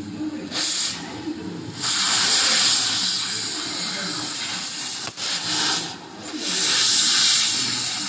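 Gas cutting torch hissing as it cuts through thick steel, its flame blowing sparks out of the cut. The hiss swells in long spells, dipping briefly about five and six seconds in.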